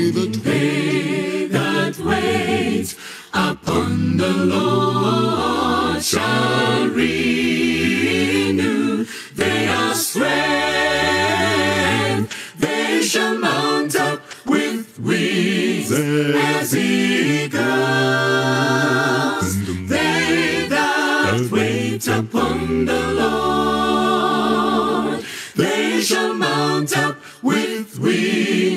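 Unaccompanied voices singing together in harmony, an a cappella vocal group, with brief breaks between phrases.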